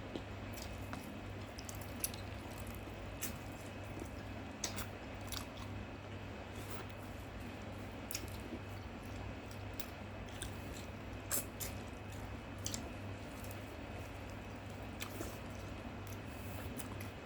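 A person chewing and biting food close to the microphone, with irregular sharp wet clicks every second or so, over a steady low hum.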